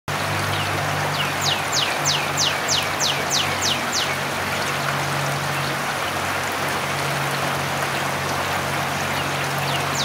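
Northern cardinal singing a rapid run of about ten downslurred whistles, roughly four a second, with another run starting near the end. A steady low hum and hiss lie underneath.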